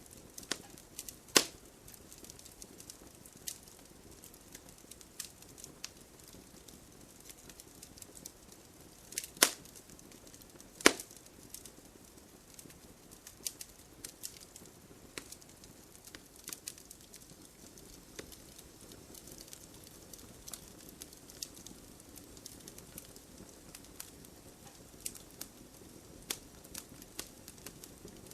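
Wood fire crackling: scattered small pops and ticks over a faint low hiss, with three loud sharp snaps, one about a second in and two close together around nine and eleven seconds in.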